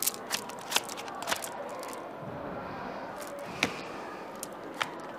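Playing cards being handled by hand: a few sharp card snaps, four in quick succession and then two more spaced well apart, over a steady low hiss.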